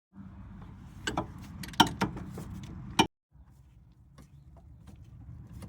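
Metal clicks and clinks of a ratchet and socket on wobble extensions working a 17mm rear hub carrier bolt loose. A few sharp clicks fall between about one and three seconds in, the loudest near the middle and at about three seconds, with fainter ticks later over a steady low hum.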